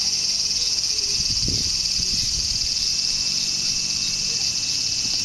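A dense insect chorus chirring steadily in a high, even buzz, with a couple of short low thuds about one and a half and two seconds in.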